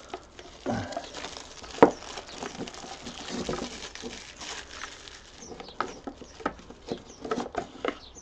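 Crinkling and rustling of a cup-noodle's plastic shrink-wrap and lid being torn and peeled off by hand, with scattered small clicks and one sharp crack about two seconds in.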